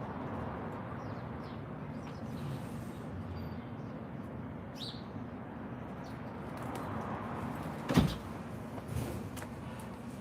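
A single sharp knock about eight seconds in and a lighter one a second later, over steady background noise.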